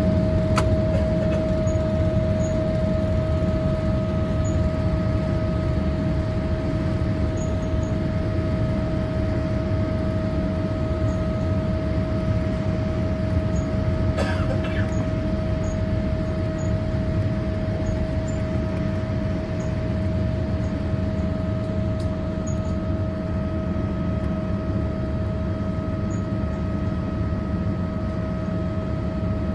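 Boeing 787 jet engines at takeoff thrust heard from inside the passenger cabin: a steady roar with a constant high whine, easing slightly as the airliner lifts off and climbs out. A brief knock sounds about halfway through.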